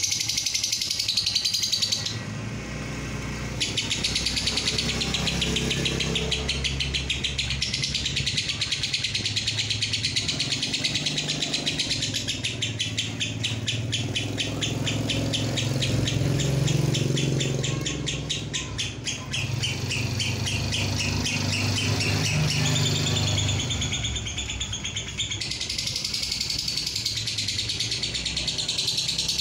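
Fischer's lovebird singing a long, fast chattering trill of high notes (the "ngekek panjang" prized by keepers), with a brief break about two seconds in, over a low steady rumble.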